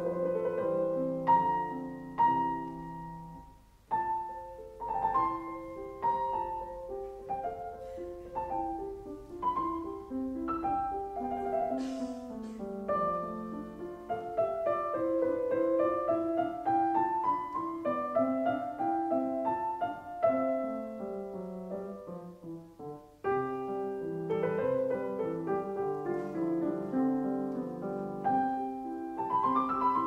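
Background piano music: a slow melody of single notes and chords, fading briefly twice between phrases.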